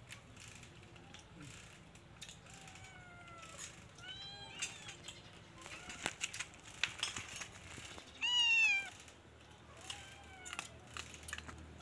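Puppy whimpering: a run of short, high-pitched whines, about one every second or so, the loudest a little past the middle.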